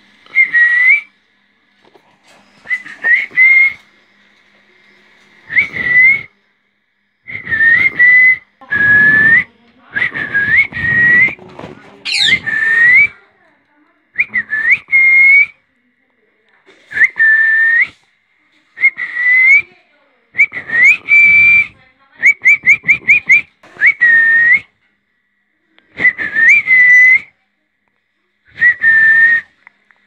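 Loud, clear whistles repeated every one to two seconds, each a single note with a quick upward hook, and a fast run of about six short whistled notes about two-thirds of the way through.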